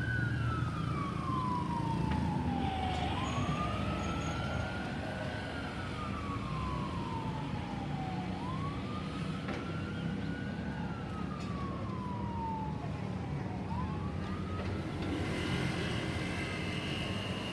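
Ambulance siren in a slow wail: the tone rises quickly, then falls slowly, repeating about every five seconds, and grows fainter near the end, over the rumble of traffic.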